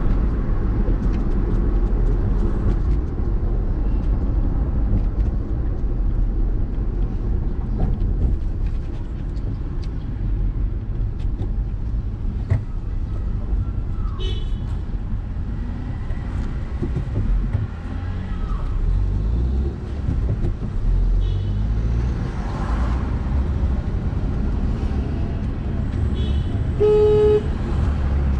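Car driving through city traffic, heard from inside the cabin: a steady low rumble of engine and road. Short car horn toots sound during the drive, the clearest one near the end.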